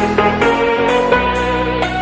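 Background music led by guitar, with a steady beat of about two beats a second.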